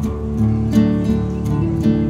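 Acoustic guitar music, with chords plucked in a steady rhythm.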